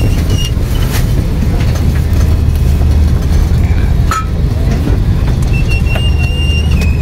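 Steady low hum of an Airbus A330 cabin, with the thin whine of a business-class seat's electric motor as the seat is adjusted toward a flat bed. The whine is heard at the start and again near the end, and there are a couple of sharp clicks.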